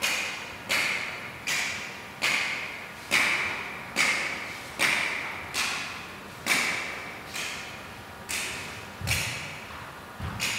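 Sharp percussive hits repeating about once a second, a little unevenly, each one ringing out and dying away in a large echoing hall.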